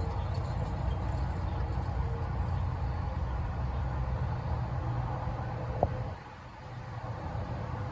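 A vehicle engine running with a steady low rumble. A sharp click comes near the end, and the rumble drops away just after it.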